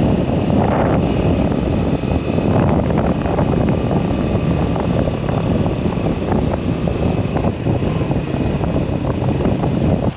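Steady wind rush over the microphone from riding a motorcycle at road speed, with the 2021 Moto Guzzi V7 850's air-cooled transverse V-twin running underneath.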